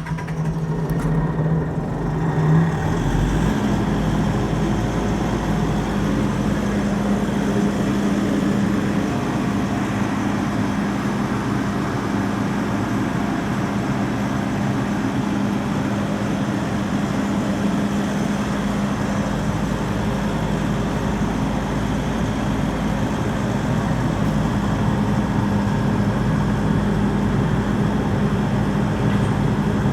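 Airman PDS400S portable diesel screw air compressor running steadily. About three seconds in, the engine note steps up a little in pitch and grows louder, then holds even.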